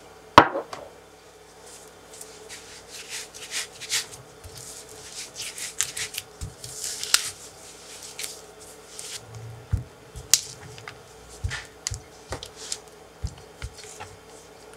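A spatula scrapes and presses sugar into softened cream cheese in a glass bowl: short, gritty scraping strokes with soft knocks of the spatula against the bowl. About half a second in there is one sharp, loud sound whose pitch drops quickly.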